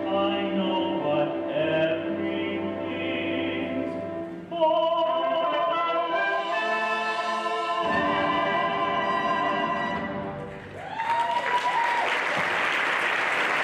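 Musical-theatre duet singing with orchestral accompaniment, rising to a long held final note about a third of the way in; the accompaniment winds down and the audience breaks into applause for the last few seconds.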